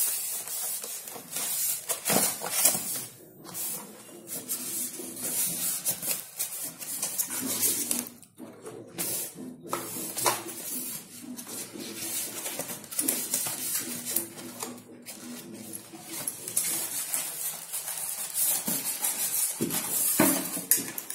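Handling noise from unpacking a toy remote-control stunt car: a styrofoam packing box and a plastic wrapper rustling and scraping in irregular bursts as the car is lifted out and set down.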